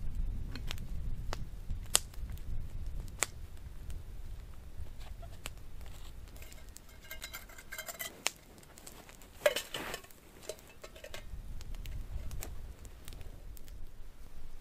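Metal camp cookware clinking and scraping as it is handled at a small wood fire, with scattered sharp clicks and a louder clatter about two-thirds of the way through. A low wind rumble on the microphone comes and goes.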